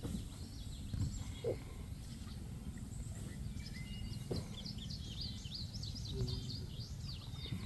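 Birds chirping: many short, quick rising and falling notes, busiest in the last couple of seconds, over a steady low rumble.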